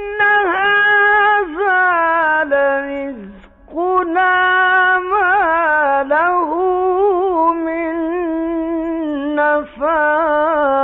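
Male Quran reciter chanting in the melodic Egyptian tajweed style, singing long held high notes with ornamental turns and wavering pitch. He breaks off briefly about three seconds in and again near the end.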